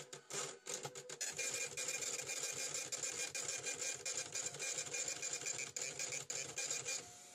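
A small machine clattering rapidly and steadily, with a faint high whine, stopping shortly before the end.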